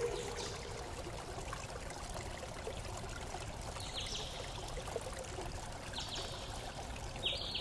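Steady running-water noise like a stream, with three brief high tones about four, six and seven seconds in.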